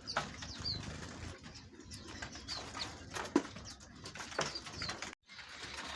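Many caged birds chirping and calling together, with short high chirps repeating and a few sharp calls sweeping steeply down in pitch. The sound cuts out for a moment near the end.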